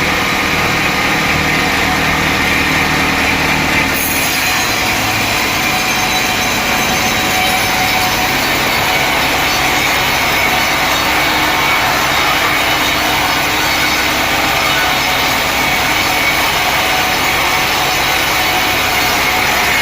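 A sawmill blade cutting through a mahogany log, giving a steady, dense sawing noise over the mill's running motor. About four seconds in, the low motor hum drops back and the cutting noise turns brighter.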